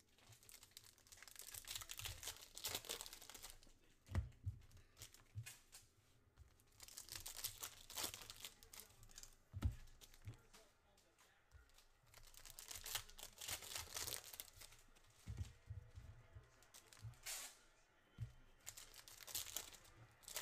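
Wrappers of 2023 Certified NFL trading card packs being torn open and crinkled by hand, in several bouts. Several short, low thumps come between the bouts.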